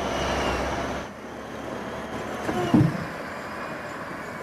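Log loader's engine running, falling off about a second in, then a single short clunk near the middle as it handles logs.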